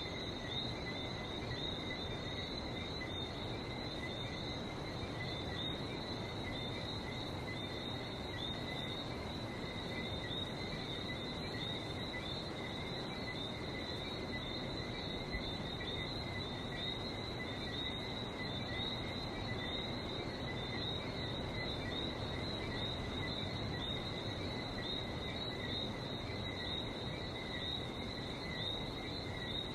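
A dense, unbroken chorus of whistling frogs, many rapid high chirps overlapping, over the steady rush of the sea.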